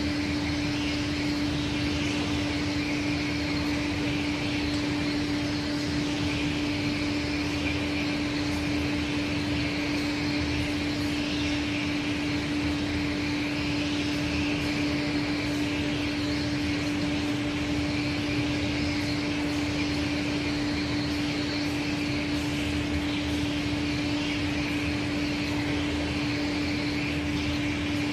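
1988 Aschersleben SZ guideway grinding machine running, its angled grinding head working along a guideway: a steady motor hum under an even grinding hiss.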